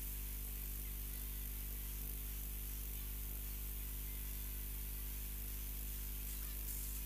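Steady electrical hum and buzz from a DJ's PA sound system, with music faint underneath; beats come back near the end.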